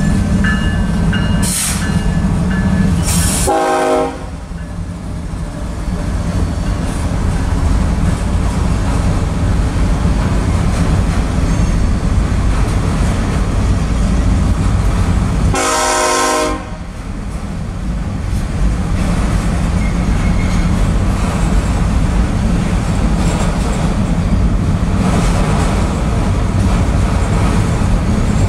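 Diesel freight train passing: BNSF locomotives and autorack cars making a steady heavy rumble of engines and wheels on the rails. The locomotive horn sounds two short blasts, one about three seconds in and one about sixteen seconds in.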